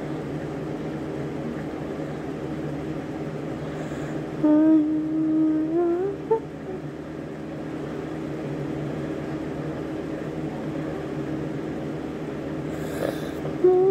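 Steady hum of an electric room fan. About four and a half seconds in, a person's voice hums briefly, holding one note and then rising in pitch.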